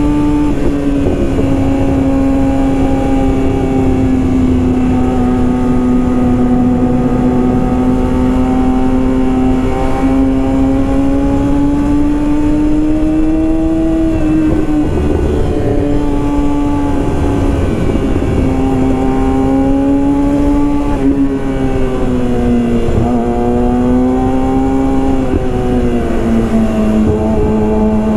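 Yamaha R6's inline-four engine through a full Yoshimura exhaust system, running loud at steady high revs, its pitch drifting slowly up and down with the throttle. The pitch dips briefly twice past the middle and drops to a lower, steady note near the end.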